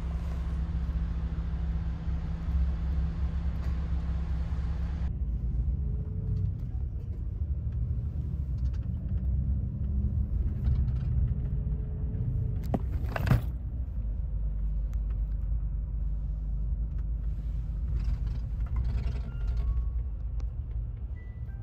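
Steady low rumble of an overnight highway bus on the move, heard inside the cabin, with one brief louder sweep of sound about thirteen seconds in.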